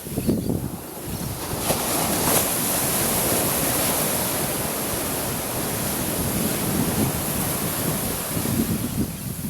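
Ocean surf washing onto the beach in rough, stormy conditions, with wind buffeting the microphone in low gusts.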